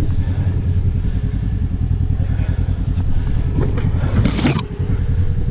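Polaris RZR side-by-side's engine running steadily close by, a low pulsing drone. A short, louder noisy burst cuts across it about four seconds in.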